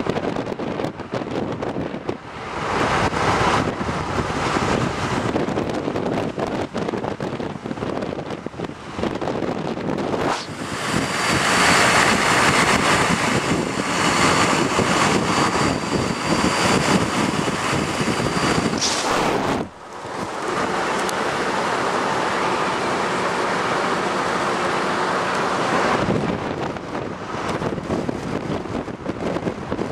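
Wind rushing over the microphone with road and engine noise from a car driving at speed. The noise grows louder in the middle, where a thin steady high whine runs along, then breaks off abruptly about two-thirds through and resumes a moment later.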